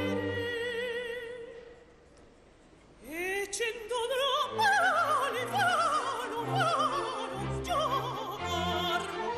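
Operatic soprano singing with an orchestra: a held note with vibrato fades away, then after a short pause she sweeps upward and sings a string of descending runs over low orchestral notes.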